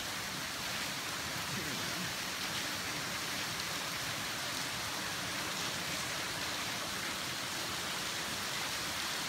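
Water from the sluice pouring and splashing onto the grist mill's large wooden water wheel, a steady rushing hiss.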